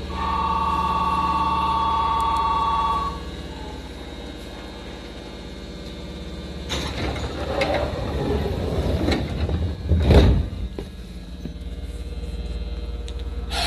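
Aboard a stopped Tokyu 8500 series commuter train, a two-note electronic door warning tone sounds steadily for about three seconds. A few seconds later comes a rushing noise that ends in a heavy thump about ten seconds in as the sliding doors shut. A steady hiss sets in near the end.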